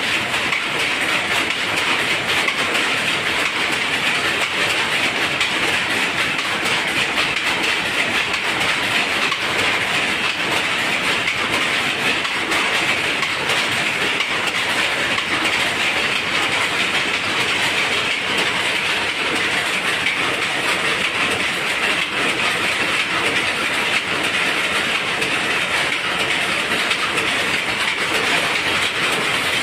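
Power looms running in a weaving shed: a loud, continuous, dense mechanical clatter of rapid beats that never lets up.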